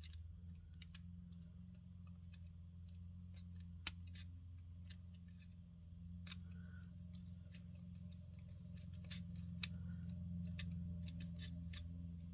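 Small scissors snipping short slits into the end of a straw: a run of faint, sharp snips at irregular intervals over a steady low hum.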